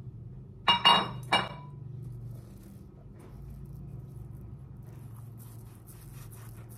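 Three sharp ringing clinks of crockery being handled, about a second in. From about five seconds a chef's knife scrapes faintly as it saws through boiled pork belly on a plastic cutting board.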